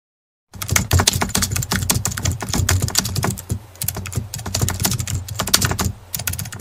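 Rapid keyboard typing clicks, a typing sound effect, starting about half a second in and running with a brief pause midway.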